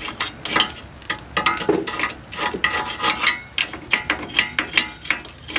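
Hand ratchet wrench clicking in quick, irregular runs, with sharp metallic clinks, while bolts and parts are worked off a rusted Jeep frame.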